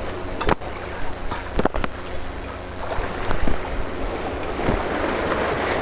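Steady rush of sea surf and wind on the microphone, with a few short, sharp clicks and knocks scattered through it.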